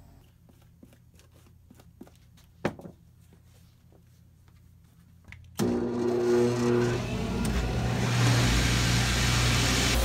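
Small handling clicks and one sharper click, then a little over halfway a cobbler's shoe finishing machine is switched on: its motors start suddenly and run steadily with a loud hum and whir.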